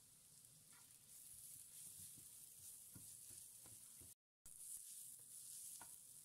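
Faint sizzling of food frying in oil in a pan, with a few light knocks from stirring. The sound cuts out for a moment just after four seconds.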